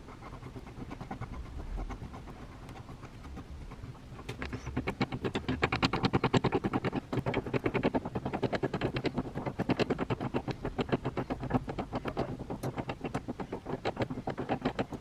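A restored 1938 Shelly 10 DL spiral screw jack cranked by its side handle, its geared mechanism clicking rapidly and evenly as the screw rises. The clicking gets much louder about four seconds in.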